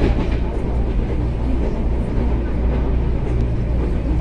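Steady rumble of a CPTM Série 8500 electric commuter train running along the line, heard from inside the carriage, with a steady low hum under the wheel-on-rail noise.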